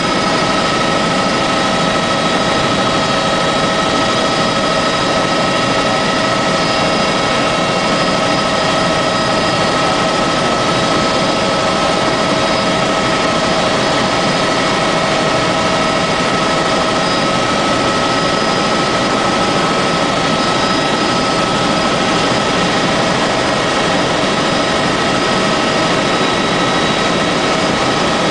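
Helicopter in flight heard from inside the cabin: a loud, steady rush of engine and rotor noise with a constant whine over it.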